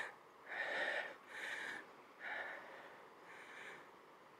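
A person breathing hard and out of breath after climbing a long flight of stairs in one go: about five heavy breaths, each a short rush of air, growing fainter toward the end.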